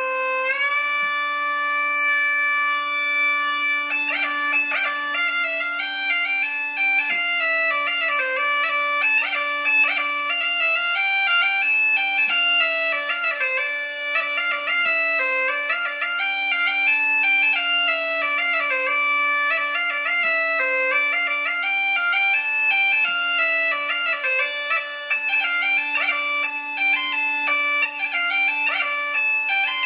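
Reconstructed medieval bagpipe with a double chanter, playing a continuous melody of changing notes over an unbroken steady low note. The pitch slides up into tune at the very start.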